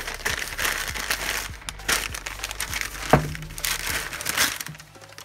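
Newspaper crinkling and rustling as it is wrapped around a metal fork tube, with a sharp knock about three seconds in.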